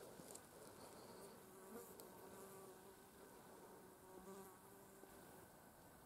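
A flying insect buzzing faintly in a steady hum that fades out after about five seconds; otherwise near silence.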